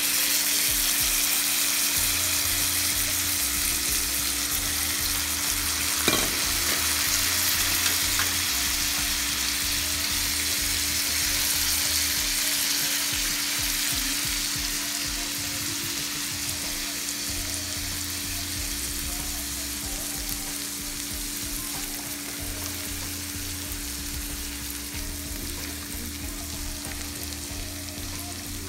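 Tilapia fillets and shrimp sizzling as they fry in a pan, a steady hiss that slowly grows quieter. A single sharp tap about six seconds in.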